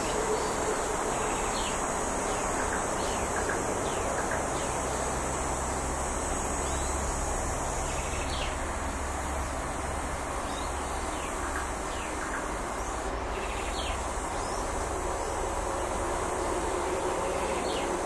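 Steady outdoor ambience: a constant high insect drone over a low rumble, with about a dozen short, falling chirps from birds scattered through it.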